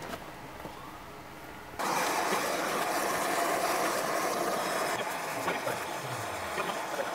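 A handheld gas torch flame burning with a steady hiss that starts suddenly about two seconds in. A brazing rod is being melted onto a cast brass cannon barrel to try to fill a casting hole.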